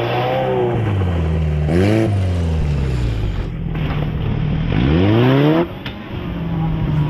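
Off-road 4x4 competition vehicle's engine running and being revved: a quick rising rev about two seconds in, then a longer rising rev that cuts off sharply a little before the end.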